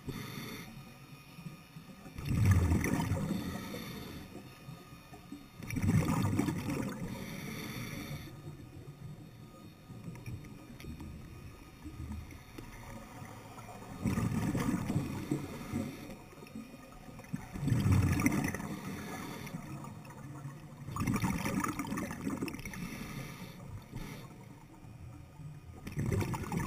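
Scuba regulator breathing underwater: about six bursts of exhaled bubbles a few seconds apart, with a longer pause in the middle.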